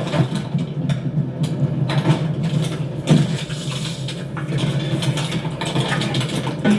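Film sound effects of the door vault's conveyor machinery: a steady mechanical rumble with rapid metallic clanks and rattles, and a louder clank about three seconds in.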